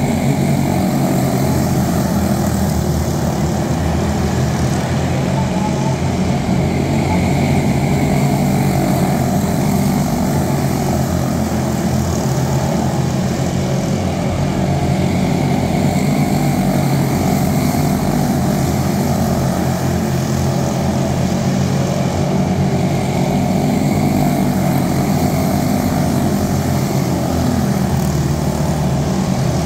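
A pack of Junior Animal quarter midget race cars running laps together, their Briggs & Stratton Animal single-cylinder four-stroke engines giving a steady, continuous drone that swells and fades a little as the cars circle the track.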